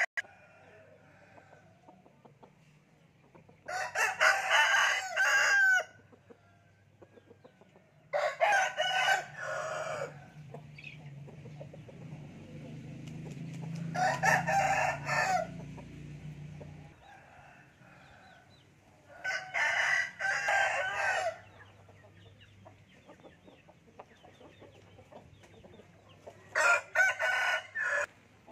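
Thai game roosters crowing one after another: five crows of about two seconds each, a few seconds apart.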